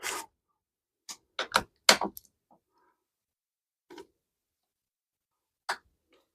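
Light clicks and taps of hardware being handled while an e-bike headlight and its bracket bolt are fitted. A small cluster comes about one to two seconds in, then single taps near four and near six seconds.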